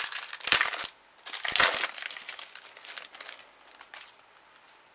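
Foil trading-card booster pack wrapper crinkling as gloved hands tear it open and handle it: a few loud crinkling bursts in the first two seconds, then softer rustles that die away.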